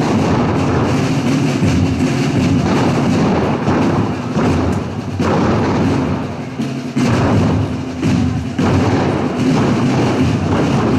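Procession marching band of drums and brass playing a march, the brass holding notes over steady drum beats.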